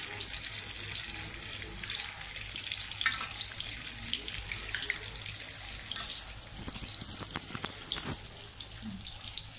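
Long beans sizzling in a hot wok with a little water just added: a steady hiss with crackles. Several scrapes and knocks of a metal spatula against the wok come in the second half.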